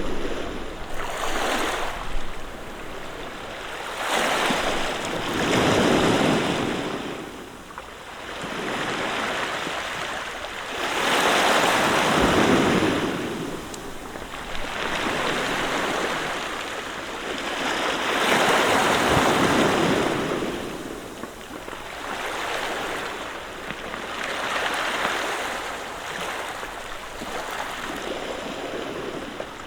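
Sea waves breaking on a pebble beach, each wave swelling up and washing back over the stones, in slow surges about every six to seven seconds.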